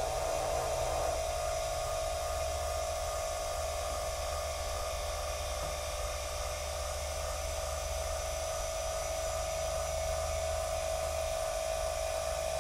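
Celestron CGX-L equatorial mount's motor whining steadily on one constant tone as it slews the telescope in right ascension. It is drawing about 0.9 A on this side because the rig is out of balance.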